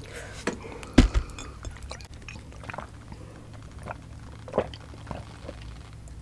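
Two people drinking warm lemon water from glass mugs, with quiet sips and swallows close to the microphone and one sharp knock about a second in.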